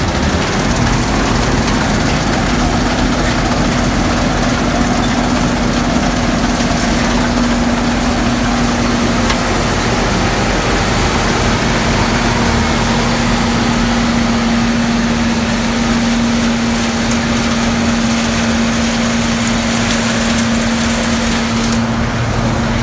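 Gleaner combine running steadily, its engine and machinery making a loud, even noise with a steady hum through it.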